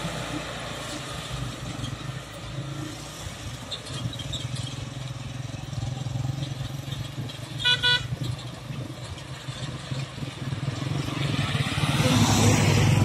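Road traffic passing: engine and tyre noise, with a vehicle horn giving two quick toots about eight seconds in. Near the end a van passes close by, growing louder.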